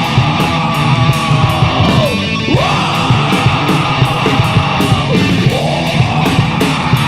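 Rock band playing live, an instrumental passage: distorted electric guitars, bass and drums with steady cymbal hits about three times a second. A couple of swooping notes dive in pitch and climb back along the way.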